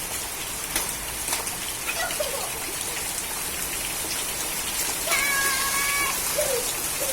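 Heavy rain falling, a steady hiss with scattered sharp drips. About five seconds in, a high voice calls out for about a second.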